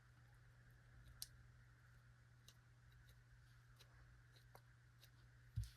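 Near silence: a steady low room hum, with a few faint clicks and a soft low thump near the end.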